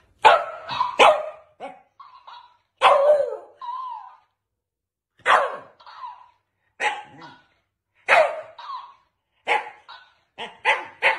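Shiba Inu barking in a string of short, sharp barks a second or two apart, coming faster near the end.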